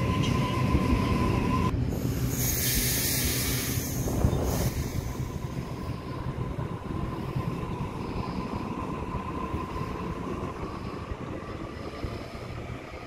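Sydney Trains Waratah A-set electric double-deck train pulling out and running past: steady rumble with a thin steady whine, and a loud burst of hissing about two seconds in that lasts a couple of seconds. The sound fades as the train draws away.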